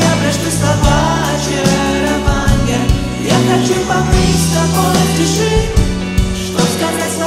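Live pop band playing an instrumental break: a Yamaha DX7 synthesizer over bass and a steady drum beat.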